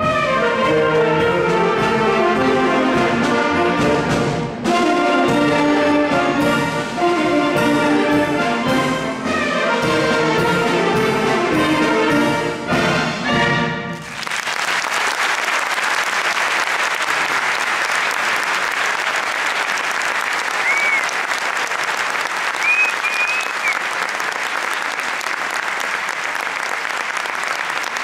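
Concert wind band playing with two saxophone soloists out front, the piece ending about halfway through. The audience then breaks into steady applause, with a couple of short whistles in it.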